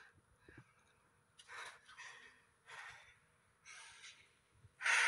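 A man breathing heavily in ragged breaths, about five in a row, the last and loudest a sharp gasp near the end.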